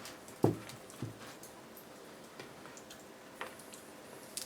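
A few short knocks and clicks of wooden pegs being worked out of a wooden plank, the loudest about half a second in, then scattered lighter ticks.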